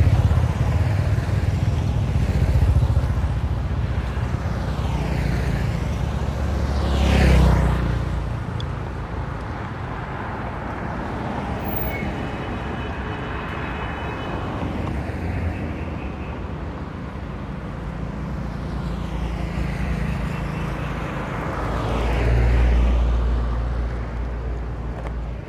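Motorbikes and cars passing one after another on a paved road. The traffic noise swells and fades with each pass-by, loudest at the start, about seven seconds in, and again a few seconds before the end.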